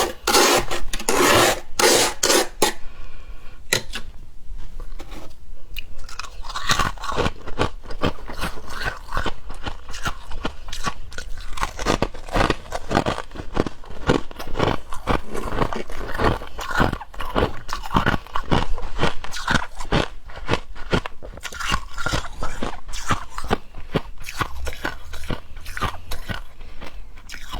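A person biting and chewing mouthfuls of soft, freshly formed frost, a rapid run of crunches close to the microphone. The crunching is loudest in the first couple of seconds, thins out from about three to six seconds in, then goes on steadily.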